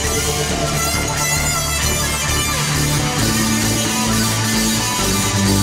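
Live band music without vocals: keyboards playing sustained chords over held bass notes that change every second or so, with electric guitar.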